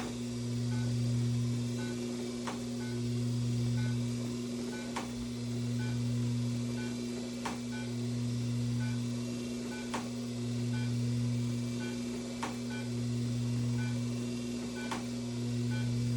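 Class IV therapy laser unit running during a treatment: a steady electrical hum, with a lower tone that swells and fades in a slow cycle and a short click about every two and a half seconds.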